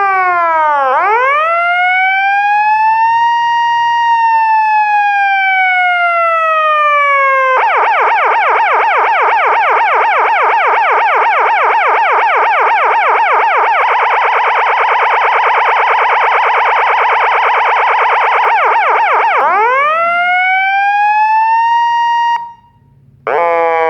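Fire-engine electronic siren sounding a slow wail that rises and falls, switching about seven seconds in to a fast yelp for about twelve seconds, then back to the slow wail. It cuts out for under a second near the end and starts again.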